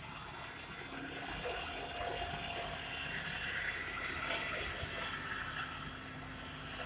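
Water rushing from a fire hose: a steady hiss that grows fuller about two seconds in, with a sharp click at the very start.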